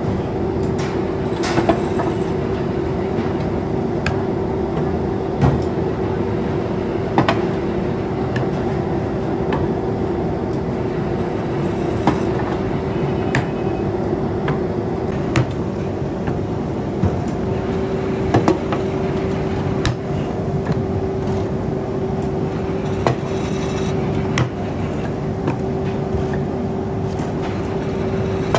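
Belt-driven pottery jigger machine running steadily with a constant hum, as clay bowls are shaped in spinning plaster moulds. Short knocks and clicks now and then as moulds and clay are set down and handled.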